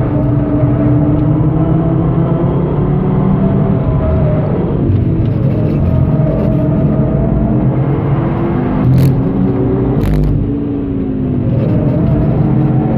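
Turbocharged inline five-cylinder engine of a tuned 2013 Audi TT-RS, heard from inside the cabin, running at mid-to-high revs with its pitch rising and falling through a downshift and changes of throttle. Two short knocks about nine and ten seconds in.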